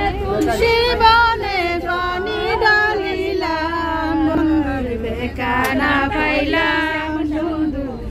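Several women singing a song together without instruments, with a steady low rumble from the moving coach underneath.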